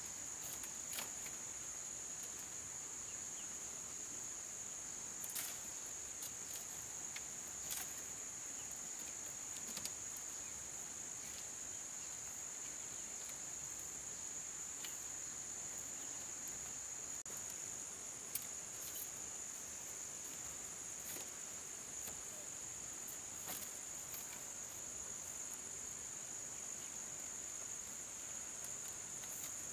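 Steady, high-pitched chirring of insects in the forest, unbroken throughout, with a few scattered sharp clicks and knocks.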